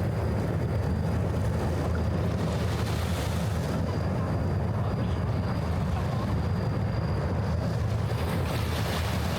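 Steady low rumble of waterfront city ambience, with wind on the microphone.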